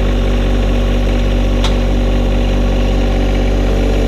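John Deere 1025R compact tractor's three-cylinder diesel engine running steadily at slightly raised revs while the tractor creeps backward in low range. A single short click comes about one and a half seconds in.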